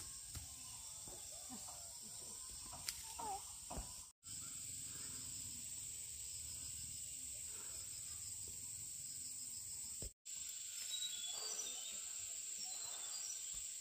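Outdoor countryside ambience dominated by a steady, high-pitched chirring of insects such as crickets. It drops out for a moment twice, with a few faint knocks in the first few seconds and short high chirps near the end.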